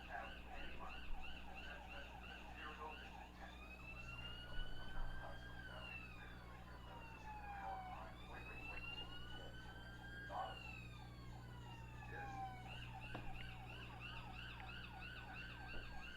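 A siren: a fast yelping warble for the first few seconds, then a slow wail rising and falling three times, with a steady low hum under the wail.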